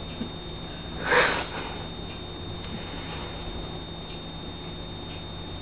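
One short breath through the nose from a Boston terrier about a second in, over a steady low hum and a faint high-pitched whine.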